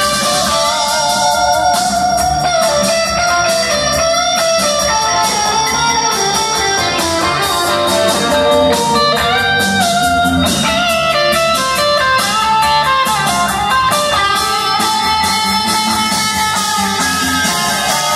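Live blues-rock band playing an instrumental passage: an electric guitar plays lead lines with sliding, held notes over bass guitar and a steady drum beat.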